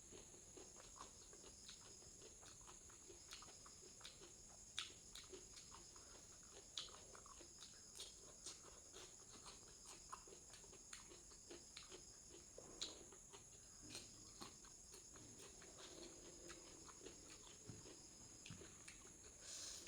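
Faint eating sounds: chewing and small irregular clicks of food and fingers or utensil on the plate, over a steady faint high-pitched whine.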